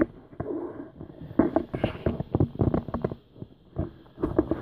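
An irregular series of soft knocks and handling clatter as things are moved about by hand.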